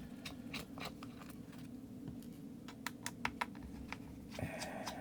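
Scattered small clicks and ticks, several a second at uneven spacing, from a screwdriver backing the tiny Pentalobe screws out of a MacBook Pro's bottom cover and the loose screws being handled.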